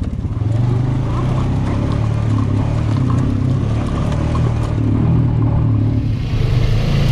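Side-by-side UTV engine running at low, steady speed as it crawls down a rocky trail, a low drone. About six seconds in, the sound gets louder with more hiss on top.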